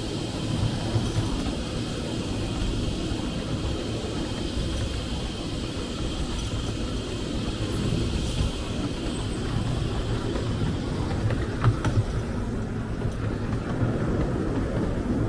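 Miniature railway train running along the track: a steady rumble of wheels on rail, with a few sharp clicks about twelve seconds in.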